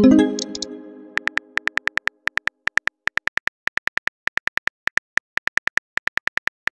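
Phone-style message-received chime at the start, ringing out over about a second. It is followed by rapid keyboard tap clicks, several a second with short pauses, from a texting app's typing sound effect.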